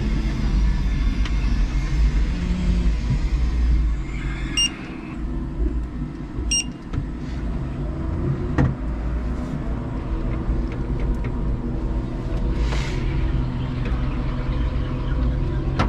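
A 5-ton electric forklift running, heard from its cab: a steady low rumble of motors and chassis. Two short electronic beeps come about two seconds apart near the middle, followed by a single sharp click.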